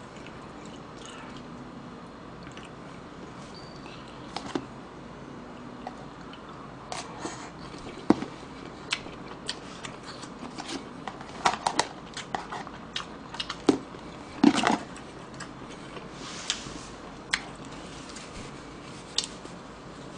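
A person chewing and eating stir-fried pork with chopsticks: wet mouth sounds with scattered sharp clicks and smacks, sparse at first and busier through the second half.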